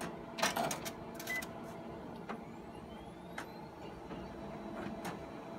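Konica Minolta bizhub C360 colour copier initializing after power-on: a steady hum of its fans and drive motors. A cluster of mechanical clicks and clunks comes about half a second to a second and a half in, and a few lighter ticks follow later.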